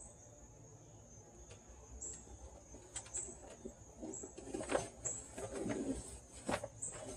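Awning fabric rustling and crinkling faintly in scattered bursts as it is slowly fed into the awning rail.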